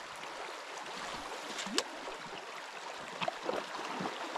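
Rushing water of a mountain river, a steady hiss, with a few short gurgles about two seconds in and again past three seconds.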